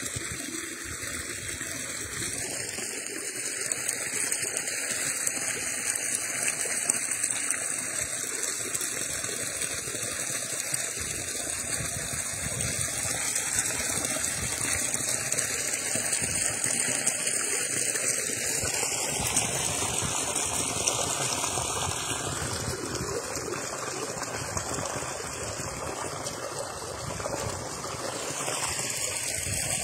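Water running steadily in a small stream, trickling and pouring over a low drop.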